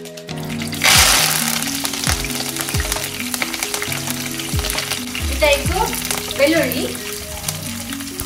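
Food dropped into hot oil in a pan: a loud sizzle bursts up suddenly about a second in, then settles into steady frying, with background music underneath.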